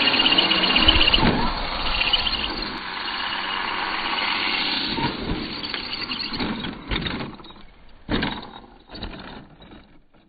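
Kyosho DBX VE 1/10 4WD buggy's brushless electric motor whining at speed, with tyre and drivetrain noise. A few knocks in the second half as the buggy lands and tumbles, then the sound fades away near the end.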